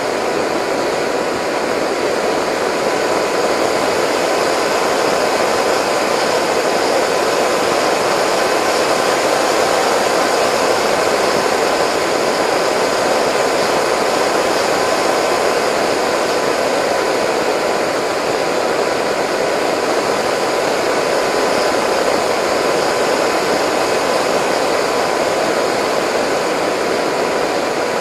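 Delta Speed XS RC flying wing heard from its onboard camera in flight: its motor and propeller run with a steady whine, mixed with rushing airflow.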